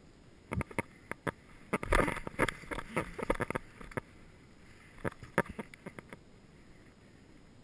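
Irregular clicks and knocks of footsteps and gear jostling as the airsoft player moves over dry ground, densest about two to three and a half seconds in, with a few more around five seconds in.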